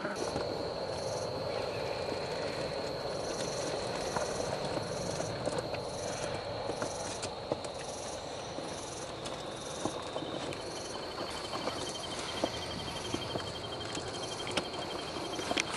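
Insects chirping in the woods, a high pulsing buzz about twice a second over a steady high tone, joined about two-thirds through by a fast ticking trill. Under it are a low steady hum and scattered light clicks.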